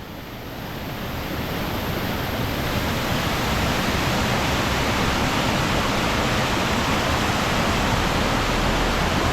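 Diyaluma waterfall in high flow, heard close to its base: a steady rush of falling water. It swells over the first few seconds, then holds level.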